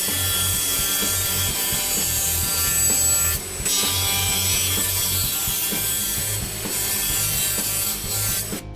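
Thickness planer running with a board feeding through its cutterhead, a loud steady noise with a brief dip about three and a half seconds in, cutting off just before the end.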